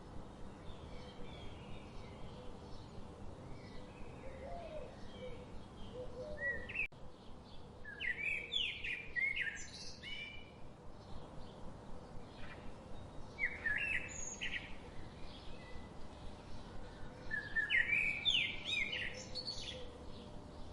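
Wild birds chirping: a steady run of short repeated chirps, with louder quick song phrases bursting in three times, about a third of the way in, past the middle and near the end.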